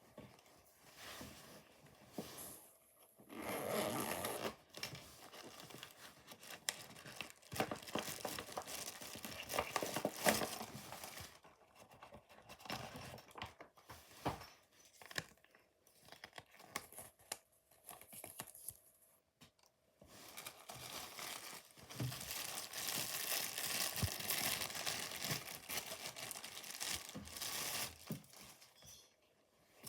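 Packaging being torn open and crinkled by hand, in irregular bursts of tearing and rustling with short pauses between.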